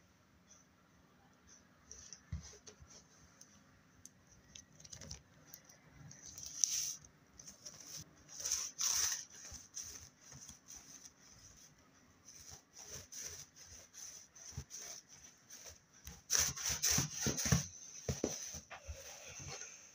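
Slime being squished and worked by hand: irregular sticky clicks, pops and crackles, louder in bursts partway through and heaviest near the end.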